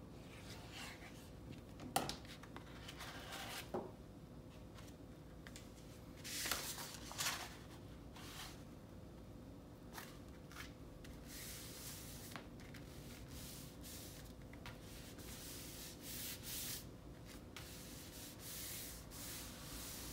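Hands rubbing and sliding sheets of paper and cardstock on a cutting mat, pressing a freshly glued scrapbook page flat onto kraft cardstock. Soft scattered rubbing strokes, with a sharper tap about two seconds in and louder strokes around six to seven seconds in.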